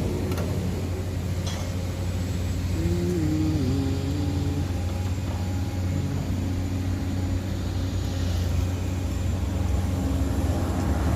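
Steady low engine hum, with faint wavering tones a few seconds in.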